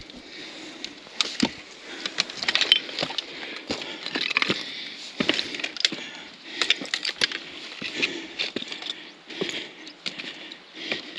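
Footsteps over loose slate rubble, an irregular run of crunches, scrapes and sharp clacks of flat stones knocking together.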